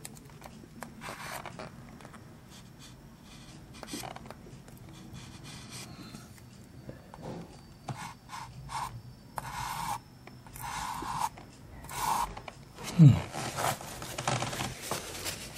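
Rubbing and scraping on wooden flooring as a putty-filled dent is smoothed flat by hand, in faint irregular strokes.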